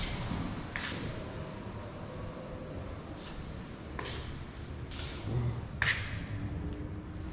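About six light knocks and taps, irregularly spaced, over a steady low rumble.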